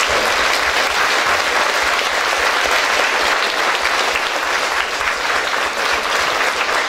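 Audience and performers applauding, steady sustained clapping.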